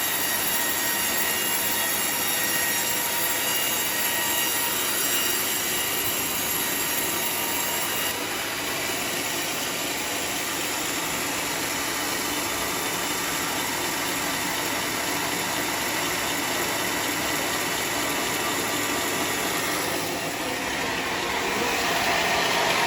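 Sawmill saw cutting teak timber: a steady, loud, high-pitched whine made of many ringing tones over a rushing noise. The tone shifts slightly about eight seconds in and again near the end.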